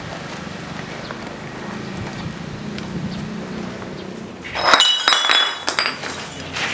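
Glass bottles clinking and clattering against one another on a tiled floor, a burst of sharp, ringing knocks lasting about a second, a little over halfway in.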